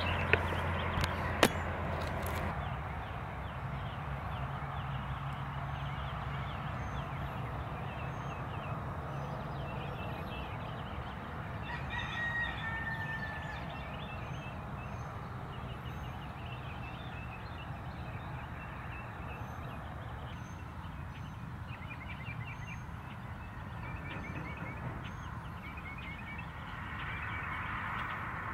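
Dawn ambience with a rooster crowing and small birds chirping over and over. Two sharp clicks come about a second in.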